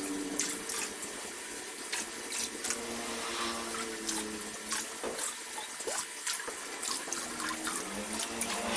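Water splashing and bubbling in a tarpaulin fish pond, a steady watery hiss broken by many irregular sharp drips and splashes.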